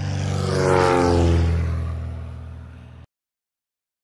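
A propeller aircraft flying past: it grows louder, peaks about a second in and falls in pitch as it passes. The sound then fades and cuts off abruptly about three seconds in.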